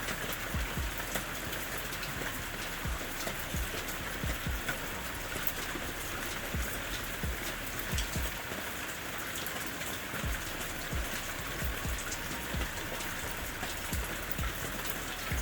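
Steady rain falling, with irregular low knocks of drops striking a surface.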